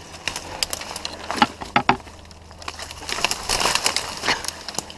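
Dry brush and twigs crackling and snapping underfoot as someone pushes through undergrowth, in irregular bursts that grow busier past the middle.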